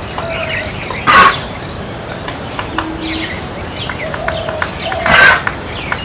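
Fulvous-breasted woodpecker pecking at wood: scattered light taps. Two louder, short, harsh bursts stand out, about a second in and near the end.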